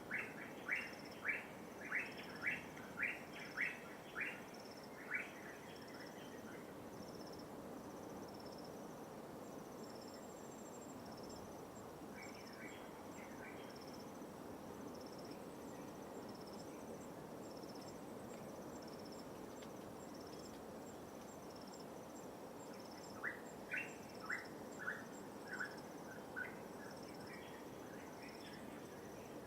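A bird gives a run of about eight short, loud, evenly spaced calls, and a second shorter run near the end. Behind it is a steady, high-pitched pulsing chirr, insect-like, over the soft, even wash of light waves.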